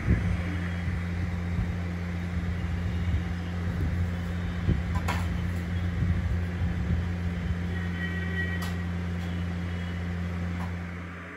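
A steady low hum, with a few light clicks as steel plates are picked up from the table about five seconds in and again later.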